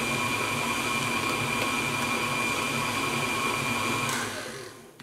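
Tilt-head stand mixer running, a steady motor whine as it beats icing in a steel bowl; it is switched off about four seconds in and winds down.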